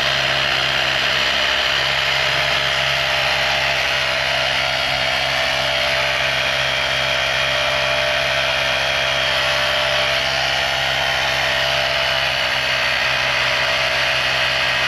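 Small air compressor running steadily, inflating a freshly fitted motorcycle tyre to push its bead onto the rim.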